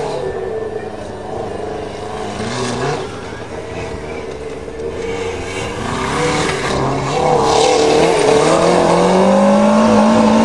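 Motorcycle-engined dune buggy running rough and misfiring, with scattered pops. It is only running on three cylinders, which the owners put down to an oily spark plug. About six seconds in the engine gets louder, and it revs higher as the buggy climbs a steep dirt hill.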